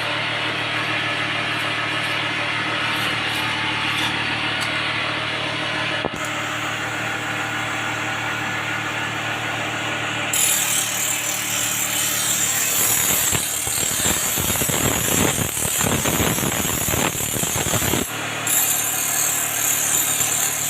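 Electric power tool running in a workshop with a steady motor hum, joined by a harsher hissing, rasping noise from about ten seconds in.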